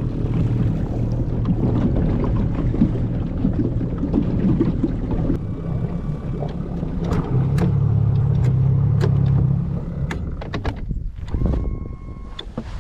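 A small boat's outboard engine runs under way, with wind and water noise and scattered clicks and knocks. The engine has a fault that the owner suspects is in the fuel line.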